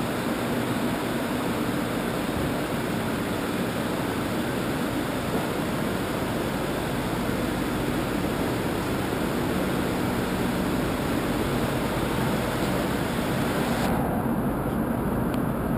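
Steady machine noise of web offset printing presses running in a print hall, an even rushing hum with no distinct strokes. Near the end the hissy top of the noise drops away sharply, leaving a duller hum.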